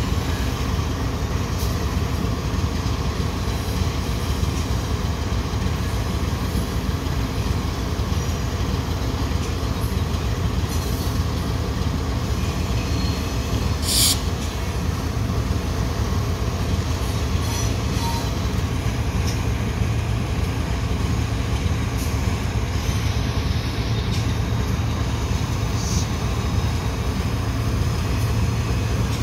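Loaded coal hopper cars of a freight train rolling past in a rail yard: a steady, low rumble of wheels on rail, under the drone of a diesel locomotive close by. About fourteen seconds in there is a single brief, sharp metallic sound.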